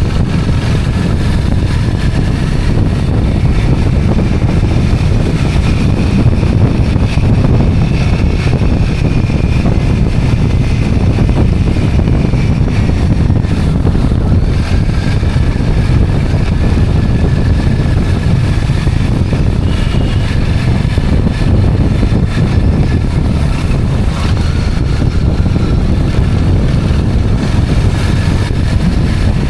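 Steady wind rush on the microphone over a motorcycle or scooter engine running underneath while riding.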